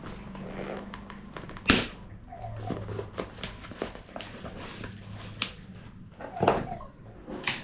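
Hands handling a new phone and its packaging: scattered clicks, taps and rustles, with two sharper knocks, one about two seconds in and one near the end.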